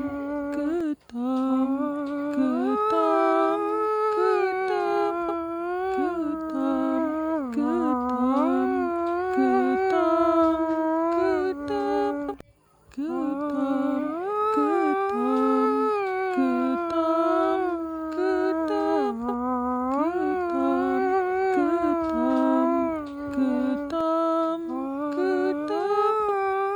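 A voice humming a slow, sad Hindustani-style melody, one wavering line with ornamented slides between notes in long phrases, broken once by a short pause about halfway.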